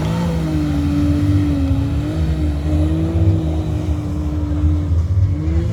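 Can-Am Maverick X3 UTV's turbocharged three-cylinder engine running under steady throttle over a loud low rumble. Its pitch wavers slightly and rises briefly near the end.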